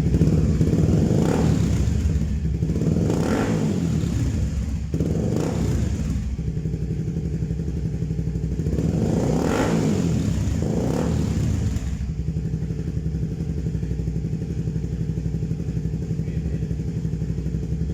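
Kawasaki Ninja 250 running through an Akrapovic slip-on muffler with its silencer insert removed, so the exhaust is open. The throttle is blipped about five times in the first twelve seconds, then the engine settles to a steady idle.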